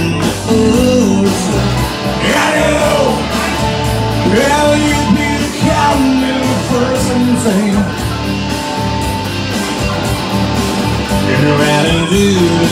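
A man singing a rock song live into a microphone, accompanied by an electric guitar.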